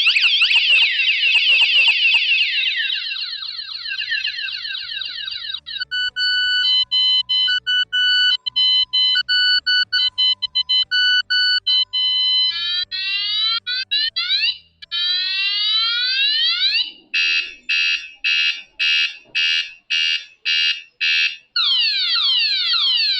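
KS-SF22R bicycle vibration alarm's siren sounding, loud, and cycling through several tones. First comes a fast warble that fades, then a run of melodic beeps, then rapid rising sweeps, then evenly pulsed beeps, and falling sweeps near the end. This is the full 30-second alarm that goes off when the vibration sensor is triggered again after its 2-second warning.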